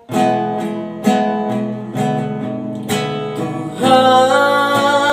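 Acoustic guitar strummed, one chord roughly every second as a song's opening; about four seconds in, a singing voice comes in over the guitar.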